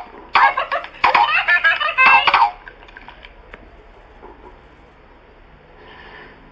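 Furby Boom toy laughing in its high electronic voice for about two seconds, starting about half a second in.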